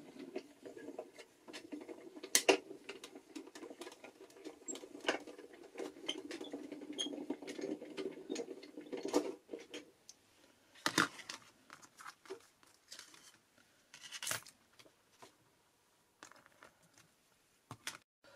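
A hand-cranked die-cutting machine rolling a metal cutting die and holographic card through its rollers for about ten seconds, grinding with uneven clicks. After that come a few separate taps and paper rustles as the cut card and die are handled.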